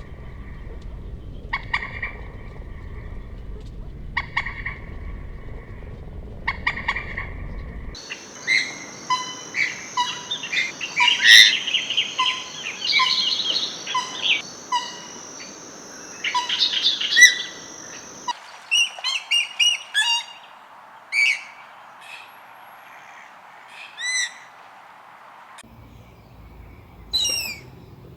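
Common moorhen calling. First come short, harsh calls repeated about every two and a half seconds. About eight seconds in there is a busy stretch of rapid calls and ticks over a steady high whine. From about eighteen seconds in come single sharp calls a few seconds apart. The background changes abruptly three times where separate recordings are joined.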